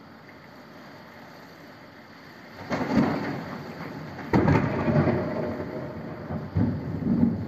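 Rain falling steadily, then a very close lightning strike: about two and a half seconds in a sudden crackling thunderclap breaks out, a sharper, louder crack follows a second and a half later, and the thunder rumbles on in swells.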